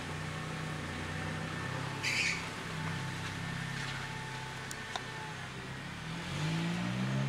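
An engine running steadily with a low hum, rising in pitch from about six seconds in as it speeds up, with a short high rustle about two seconds in.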